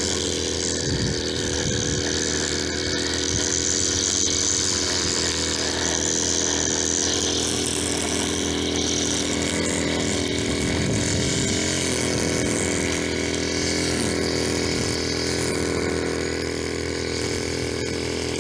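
Two-stroke 32.6 cc petrol engine of a Forestwest BM11116 multi-tool with the string-trimmer head fitted, running steadily at speed while trimming grass.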